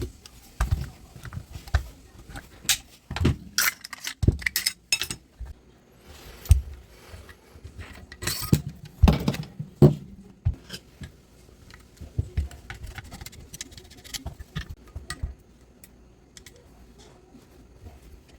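A VFC T91 gas blowback airsoft rifle's metal parts being handled as it is taken apart: irregular clicks, knocks and metallic clinks, busiest in the first ten seconds, then lighter scattered ticks.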